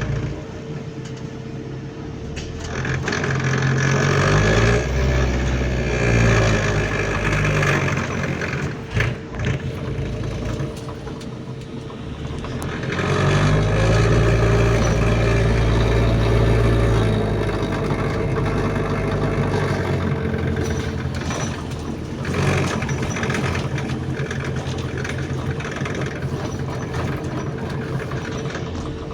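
Bus engine heard from inside the bus, pulling hard twice and easing back in between, with a steady whine underneath.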